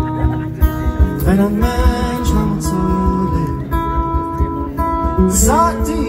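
Live music with strummed guitar over a steady low beat.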